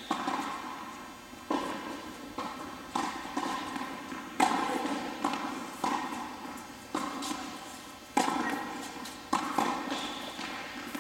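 Tennis ball struck back and forth by racquets and bouncing on an indoor hard court during a rally, about one sharp hit a second, each one echoing through the hall.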